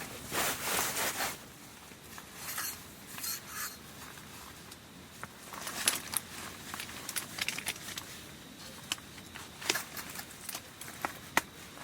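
Rustling for about the first second, then scattered small clicks and scrapes, as of camping gear being handled at close range.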